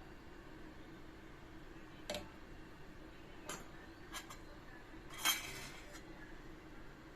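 Kitchen utensils clinking against dishes: three or four separate clinks, then a louder, longer clatter about five seconds in.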